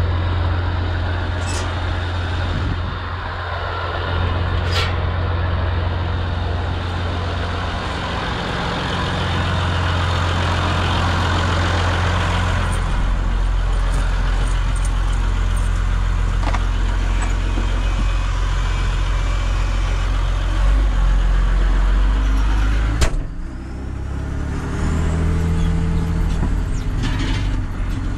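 Massey Ferguson 6180 tractor's straight-piped diesel engine running with a steady low drone. Near the end a sharp knock sounds, after which the engine revs up.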